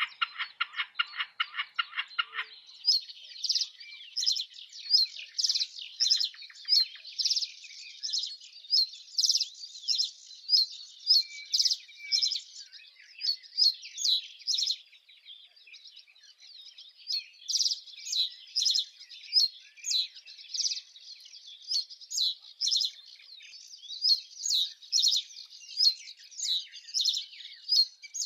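A bird chirping, short high notes repeated about twice a second, with a brief lull midway. At the start a lower, fast-pulsed call breaks off suddenly.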